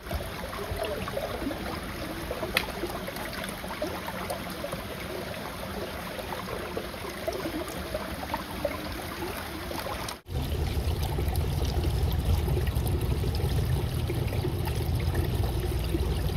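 Running water trickling and gurgling. After a cut about ten seconds in, strong wind buffets the microphone with a louder, low rumble.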